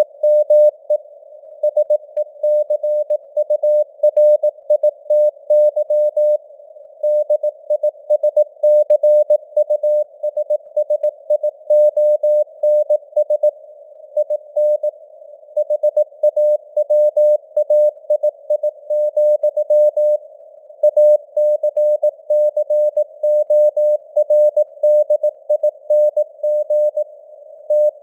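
Morse code (CW) at 18 words per minute: a single steady mid-pitched tone keyed on and off in dots and dashes over a narrow band of simulated radio static. The signal strength wavers (QSB fading), and there are a few longer pauses between words.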